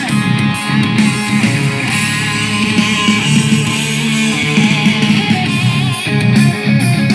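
Guitar music played from a phone through a home-built 12 V mini stereo amplifier kit and its speaker cabinets, at loud volume as a test of the amplifier.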